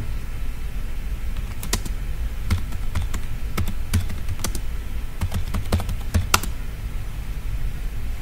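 Typing on a computer keyboard: irregular single keystrokes as a short message is typed, over a steady low hum.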